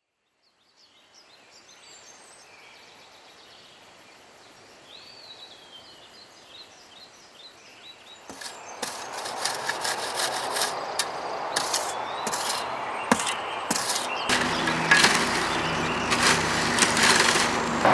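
Quiet forest ambience with birds chirping, then, growing louder from about eight seconds in, a run of knocks and scrapes from hand tools working dirt and wood; a low steady drone joins near the end.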